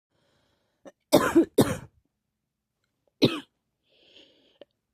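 A person coughing: two hard coughs in quick succession about a second in, then a single cough a couple of seconds later, followed by a faint breath in.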